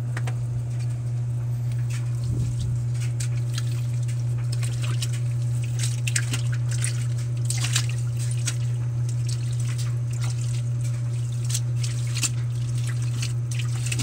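Water splashing and dripping in the tub of a top-load washing machine as a soaked blanket is pressed down by hand, in scattered short splashes over a steady low hum.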